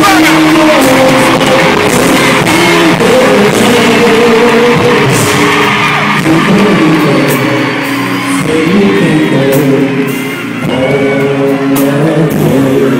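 Male vocal group singing live together into microphones, several voices in harmony, in a loud concert recording with hall reverberation.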